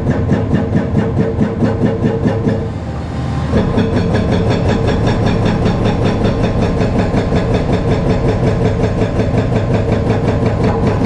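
Cat 335 Next Gen excavator's C7.1 diesel running under load with a fast, even rhythmic clatter; the sound eases briefly a little under three seconds in, then picks up again.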